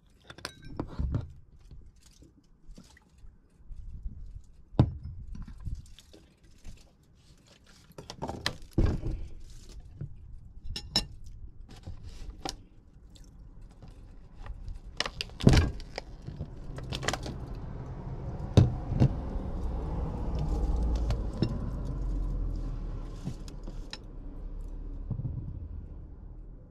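Scattered clinks, taps and crinkles of tableware and plastic packaging being handled on a table: a plastic water bottle, a drinking glass and a plastic grape container. A low rumble swells through the second half and eases near the end.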